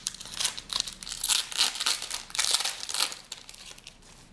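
A trading card pack wrapper being torn open and crinkled in the hands: a run of crackly rustles that dies away a little before the end.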